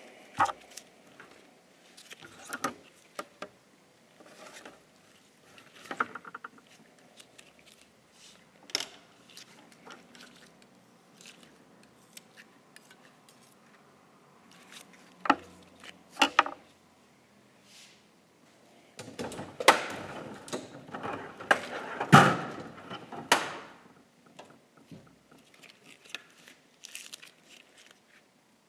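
Metal palette knives and other painting tools being handled at a work table: scattered clicks, taps and scrapes, with a busier stretch of clatter and scraping about two-thirds of the way through.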